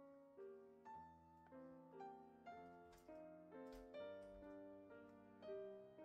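Soft background piano music: a slow melody of single notes, about two a second, each ringing out and fading. Two faint clicks come a little past halfway.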